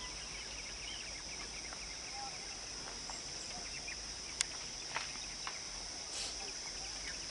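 Steady high-pitched drone of insects, with scattered faint bird chirps and one sharp click a little after halfway.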